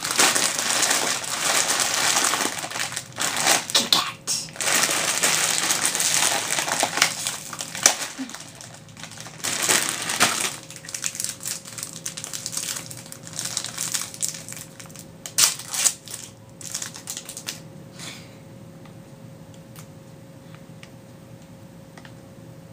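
Plastic candy bag crinkling loudly for the first several seconds. Then scattered crinkles and sharp clicks as a Kit Kat wrapper is opened and the wafer bar snapped apart with a small snap. It is quieter near the end.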